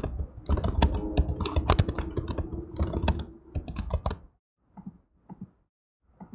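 Typing on a computer keyboard: quick keystrokes for about four seconds, then a few faint, separate clicks.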